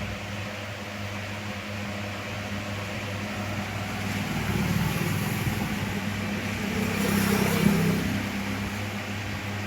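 Steady mechanical hum over a noisy background, swelling louder in the middle and peaking about seven to eight seconds in.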